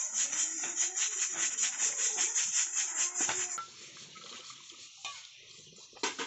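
Green fodder leaves and stems being chopped by hand for cattle, a quick steady run of cutting strokes, several a second. It cuts off suddenly after about three and a half seconds. Then comes quieter dishwashing: water poured over metal pots, with a faint clink or two near the end.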